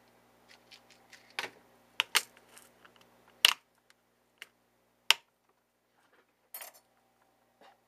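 Small plastic pill box clicking and clattering as it is handled, set down on a hard surface and a compartment's snap lid is flipped open: a string of separate sharp clicks, the loudest about three and a half and five seconds in.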